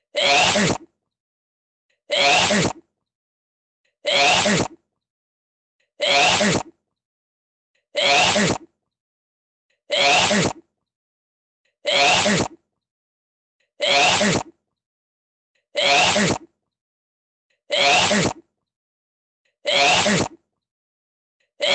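A person's sneeze repeated over and over, about one every two seconds, with silence between. Each sneeze looks the same, as if one sneeze recording were looped.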